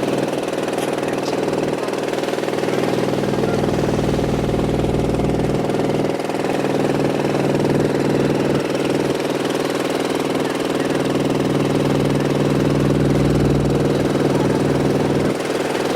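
Boat engine running steadily with an even drone.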